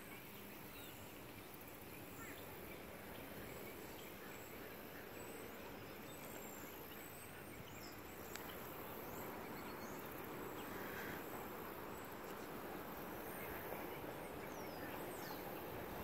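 Faint, steady outdoor hiss with scattered short, high bird chirps.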